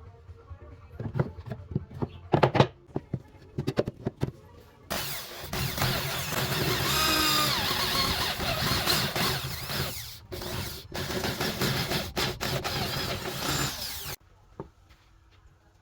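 A string of sharp knocks and clicks from work on wood. Then a handheld power tool runs for about nine seconds, its pitch dipping and rising as it works, and cuts off abruptly.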